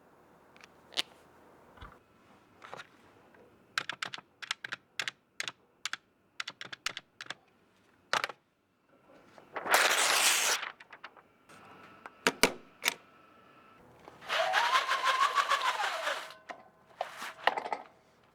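A series of sharp clicks and taps, with a quick irregular run of them that sounds like keys being typed. About ten seconds in there is a short loud hiss-like burst, and later a longer noisy sound with a tone that rises and then falls.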